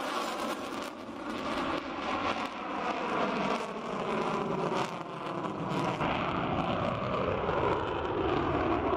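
Sukhoi Su-57 fighter jet flying a display manoeuvre, its twin jet engines making a steady rushing roar with wavering tones that slide in pitch. The low rumble grows stronger about two-thirds of the way in.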